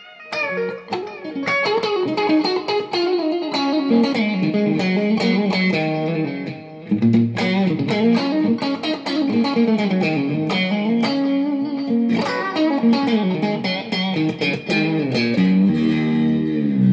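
Electric guitar played through a Line 6 POD HD500 multi-effects unit on a crunch patch: PHD Motorway amp model with noise gate, digital delay and reverb, a lightly driven, crunchy tone rather than full distortion. It plays melodic lines of quick notes, with a short break about seven seconds in.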